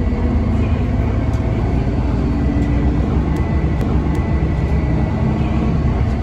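Steady low rumble of a moving city bus heard from inside the cabin, engine and road noise together, with a faint steady high whine.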